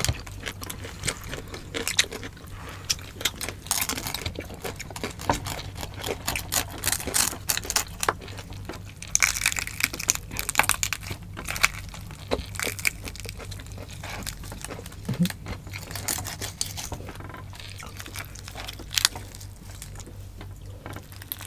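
Hands tearing and pulling apart a roast suckling pig, with many small irregular crackles and clicks from the meat and skin.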